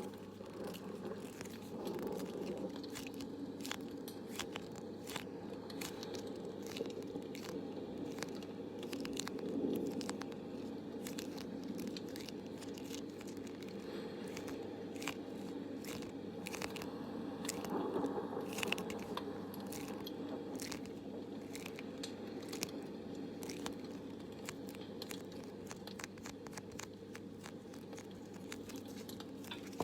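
Campfire crackling: dense, irregular sharp pops and snaps over a steady low rumble.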